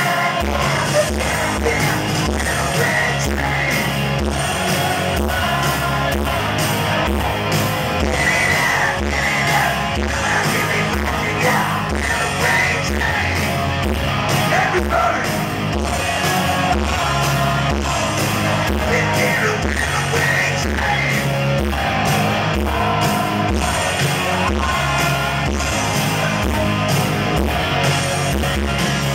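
Live hard-rock band playing: distorted electric guitars, bass guitar and a steady drum beat, with a man singing and shouting over the top.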